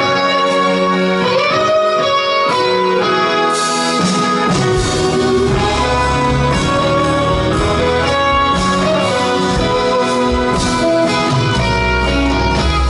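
Live folk-pop band playing an instrumental break: fiddles and accordion carry the melody over guitar. Bass and drums come in fuller about three and a half seconds in.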